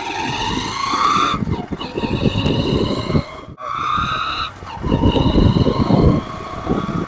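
Honda SP125 BS6 motorcycle engine pulling in gear, with a high whine from the primary drive gear that rises in pitch as the bike speeds up. The whine drops out briefly about halfway, then rises again. It comes only in gear, not when revved in neutral, and the mechanic puts it down to the primary drive gear.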